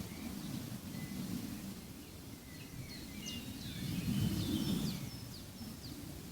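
Nature-sound ambience: small birds chirping in quick short notes through the middle, over a low rumble that swells and fades.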